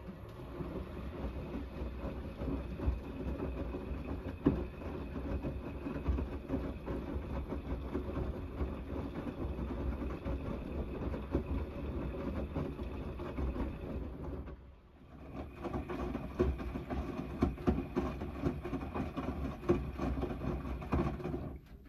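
Gorenje WNEI front-loading washing machine's drum turning a wet load during the main wash: a steady motor hum with water sloshing and laundry knocking against the drum. It pauses briefly about two-thirds through, turns again, and stops near the end.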